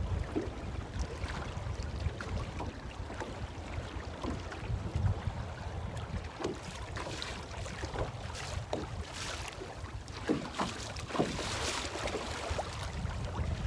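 Wind buffeting the microphone in an open fishing boat, a constant low rumble, with scattered light knocks and a gustier stretch around the middle.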